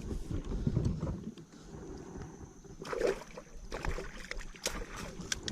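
Low rumbling handling noise on a fishing kayak, with scattered clicks and knocks and a brief louder sound about three seconds in.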